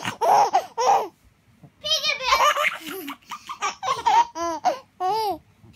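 Baby laughing in short giggly bursts, pausing briefly about a second in, then laughing again, with two high squeals that rise and fall in pitch near the end.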